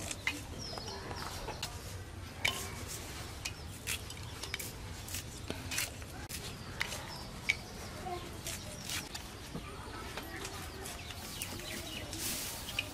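Irregular sharp clicks and taps as small knife blades slit green chilies and the chilies drop into clay bowls, with chickens clucking in the background.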